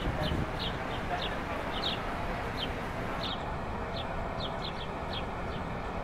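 Birds chirping in short, high, slightly falling notes, repeating irregularly about once or twice a second, over a steady rushing background noise.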